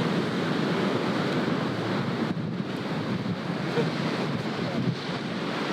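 Wind rushing over the microphone, with ocean surf breaking in the background: a steady, noisy hiss and rumble.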